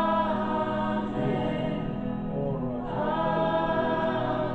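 Background gospel worship music: a choir singing sustained notes over a steady low accompaniment.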